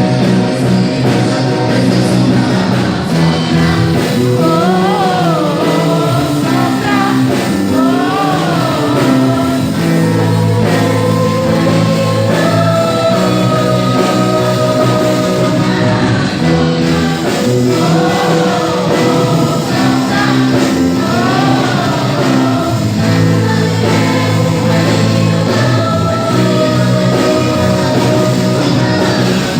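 Portuguese Christian worship song with a singing voice over a steady instrumental backing, played loud throughout.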